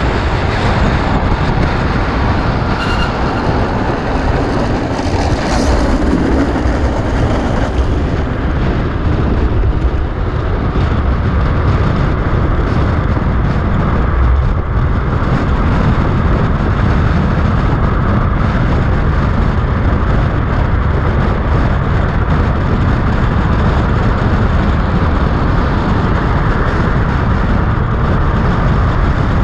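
Steady rush of wind buffeting an action camera's microphone on a speed trike coasting fast downhill, with the rumble of its wheels rolling on asphalt underneath.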